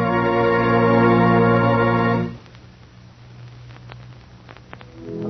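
Organ chord held loud and steady for about two seconds, then cut off. A few faint clicks sound in the quieter stretch that follows, and music swells back in near the end.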